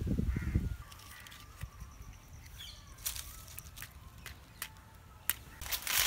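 Dry palm fronds catching fire, with sharp crackling snaps starting about halfway through and growing more frequent. A few low rumbling thumps come in the first second.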